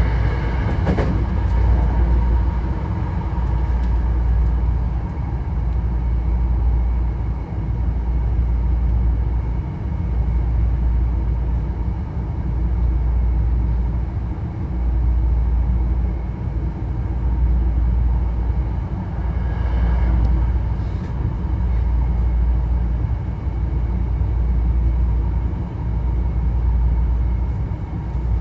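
Hankyu Kyoto Line electric train running, a steady low rumble of wheels on the rails heard from inside the front car, swelling and easing every couple of seconds.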